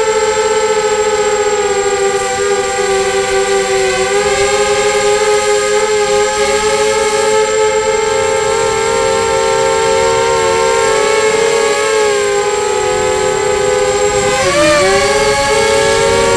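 Quadcopter's electric motors and propellers whining steadily, heard close up from the aircraft's own camera, with two close pitches beating against each other. The pitch wanders slightly and dips, then rises again, near the end.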